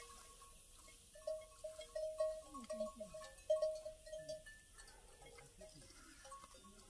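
Livestock calling: a string of short, even-pitched calls starting about a second in and lasting some three seconds, with a few lower, falling sounds among them.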